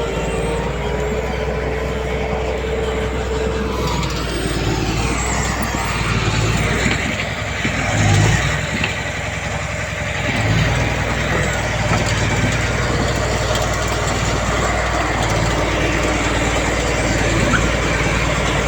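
Heavy diesel earth-moving machinery running steadily, with a high whine held through the first few seconds and a brief swell in engine level about eight seconds in.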